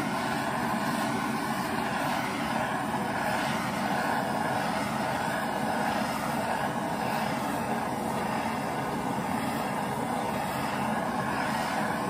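Hand-held propane torch burning with a steady rush of flame as it is moved over a slip-coated clay slab to dry the slip.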